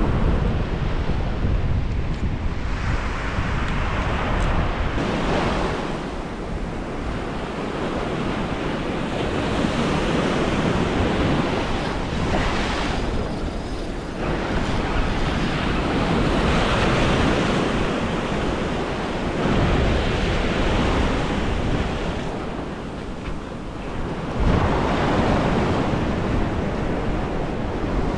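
Surf washing up the beach, with wind buffeting the microphone; the rushing noise swells and eases every few seconds.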